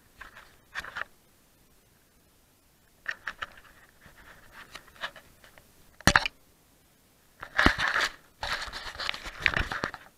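Close handling noise on an action camera: rustling and scraping against the mic in short bursts, a sharp knock about six seconds in, then longer scraping near the end as the camera is set down in the grass.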